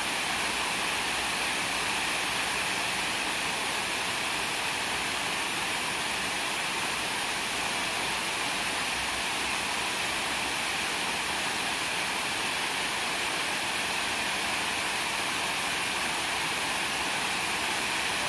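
Shifen Waterfall, a wide curtain of water falling over rock ledges into its plunge pool, rushing with a steady, unbroken noise.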